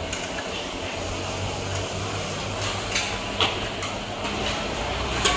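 Open-air food stall background: a steady low hum under a general din, with a few short, sharp clinks about three seconds in and again near the end, the last one the loudest.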